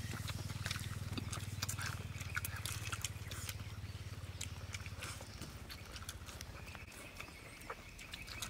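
Eating sounds: chewing and lip-smacking with scattered quick clicks, over a low steady hum that fades about halfway through.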